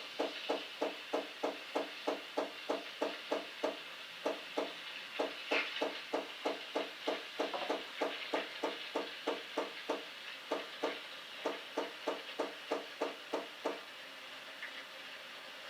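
Krups XP 3440 espresso machine running, its pump pulsing evenly about four to five times a second under a steady hiss. The pulsing stops near the end and the hiss carries on.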